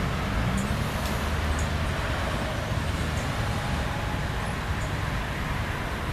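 Steady low rumble of motor vehicles, engines and road traffic, with no single event standing out.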